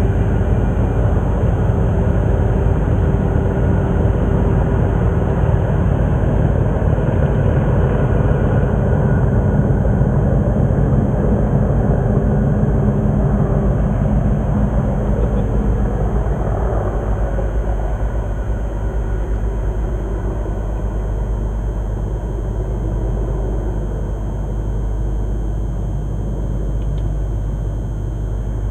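Diesel engines of two class 37 locomotives heading a test train, a low rumble heard from beyond view. Their engine tones die away about halfway through and the rumble slowly fades as the train draws away.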